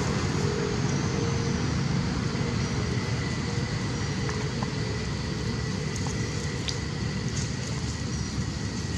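Steady outdoor background rumble, heaviest in the low end, with a faint steady high tone over it and a few faint ticks.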